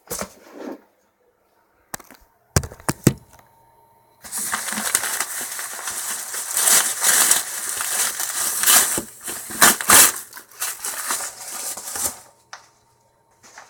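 Packaging being opened by hand: a few sharp knocks as the package is handled, then about eight seconds of dense rustling and crinkling.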